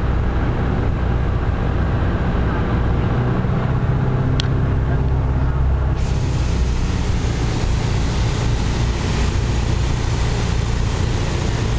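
Light aircraft's piston engine and propeller droning steadily, heard inside the cabin in flight along with the rush of air past the airframe. A single brief click about four seconds in.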